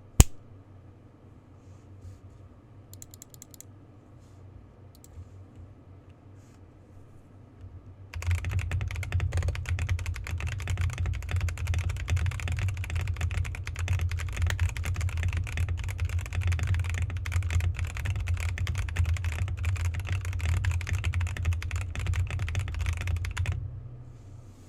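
Mechanical keyboard fitted with stock, unlubricated Gazzew Boba U4T tactile switches being typed on. A few faint keystrokes for the first eight seconds, then fast, continuous typing with a deep thud under each click for about fifteen seconds, stopping about a second before the end.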